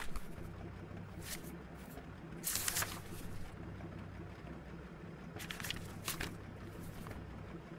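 A few short rustles of paper being handled and unfolded, over a low steady background hum.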